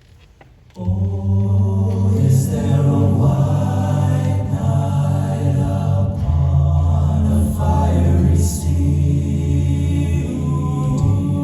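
A choir singing in parts, with sustained chords over a steady low bass line. It comes in about a second in, after a brief near-silence.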